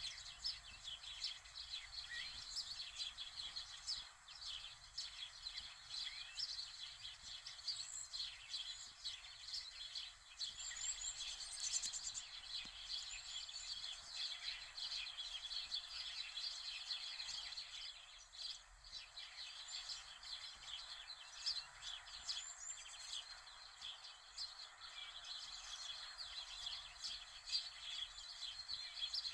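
Many small birds chirping, a dense continuous chatter of short chirps with a few higher whistled calls now and then.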